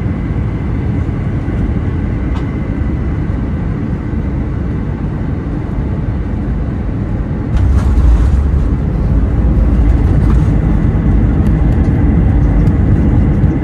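Inside the cabin of a British Airways Airbus A320 rolling on the ground, a steady low rumble of engines and wheels. It grows louder about seven and a half seconds in and stays that way.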